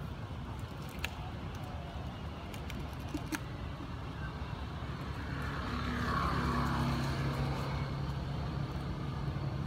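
A motor vehicle's engine running, a steady low hum that grows louder about five seconds in. Two sharp clicks come about one and three seconds in.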